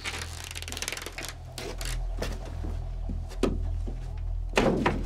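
Low, steady background-score drone, with handling and movement sounds over it: a rustle in the first second, then scattered soft knocks and clicks, and a louder thud near the end.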